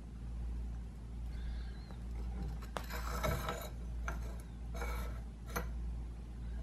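Metal scope mount being slid and pushed onto a Benjamin 392 air rifle's receiver by hand: a click and a short metal-on-metal scrape about three seconds in, another scrape near five seconds and a sharp click just after. A steady low hum runs underneath.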